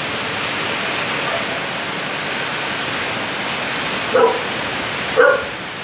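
Steady rushing noise of typhoon wind and rain, with a dog barking twice, once about four seconds in and again about a second later.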